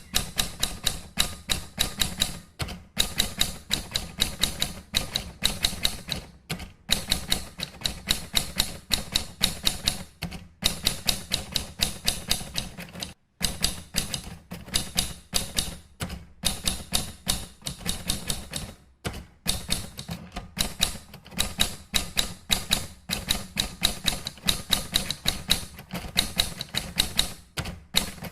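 Rapid, irregular keystrokes of someone typing: runs of sharp clicks, several a second, broken by short pauses every few seconds.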